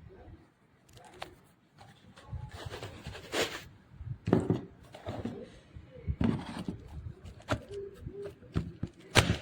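Irregular clicks, knocks and rustles of objects being handled, with a sharper knock near the end; no tool is running.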